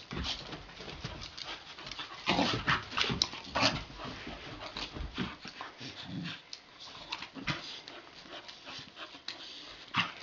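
Two retriever puppies play-wrestling: short scuffles and small dog noises come in irregular bursts, busiest about two to four seconds in.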